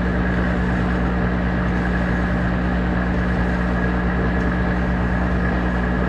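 Monarch 10EE toolroom lathe running steadily with its spindle turning, a constant hum with a thin high whine above it, while a hand file is held against the spinning screw thread. The lathe is running back in reverse after a thread-cutting pass.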